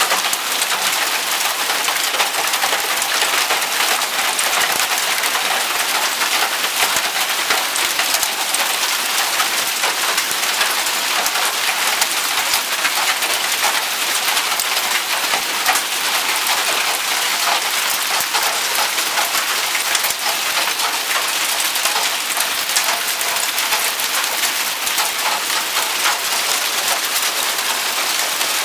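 Heavy storm downpour beating on paving and a parked car: a dense, steady hiss with many small sharp taps.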